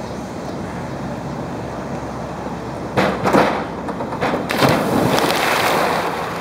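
Diving springboard banging as a diver takes off, about three seconds in, then a loud splash as he hits the pool water about a second and a half later, with spray and churning water for over a second.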